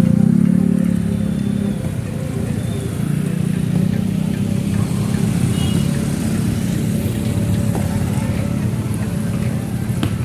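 Motorcycle engine running as the bike is ridden, easing off briefly about two seconds in, then pulling steadily again.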